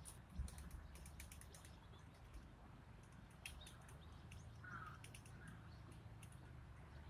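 Near silence outdoors, with faint scattered clicks, a soft thump about half a second in, and two faint short bird chirps about two-thirds of the way through.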